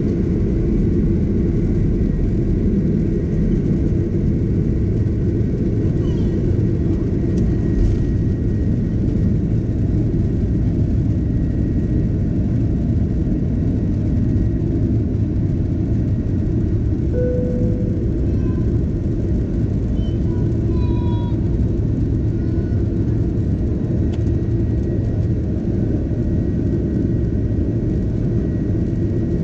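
Steady low rumble of an Airbus A330-300's jet engines and airflow, heard inside the passenger cabin. A faint steady high tone runs through it.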